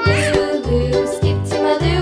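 Upbeat children's background music with a steady bass beat.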